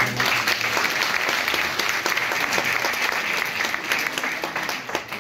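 Audience applauding, many hands clapping at once; it starts suddenly and thins out to a few scattered claps near the end.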